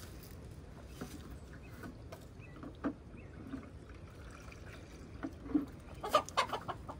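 Water being scooped and poured, trickling faintly, with scattered light knocks and a cluster of louder sharp clatters near the end.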